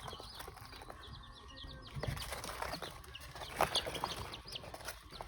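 A brood of young pheasant and chicken chicks peeping: a constant scatter of short, high chirps.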